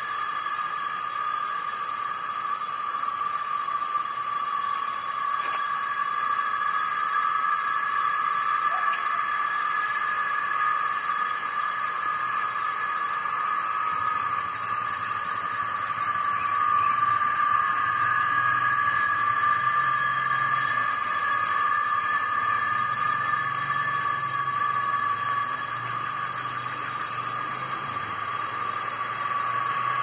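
Chorus of male cicadas singing in the trees, a steady high-pitched drone at several pitches at once; it is the males' mating call to attract females.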